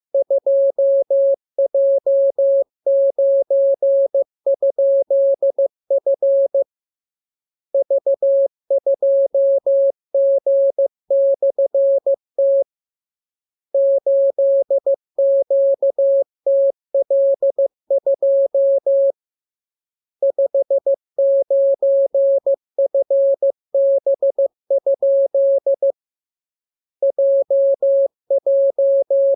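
Morse code: a single steady pitch of about 600 Hz keyed on and off into dots and dashes, sent in runs of characters with a pause of about a second between runs.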